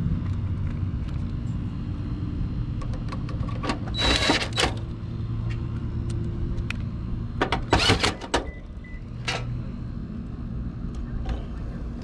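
Steady low mechanical rumble in the background, with two short bursts of clicking and rustling, about four and about eight seconds in, as wires and a contactor are handled in a heat pump's electrical panel.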